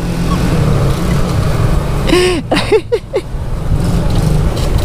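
Motor scooter riding along a street: steady engine and road noise with a heavy low rumble. A brief voice sound from the rider comes about two seconds in.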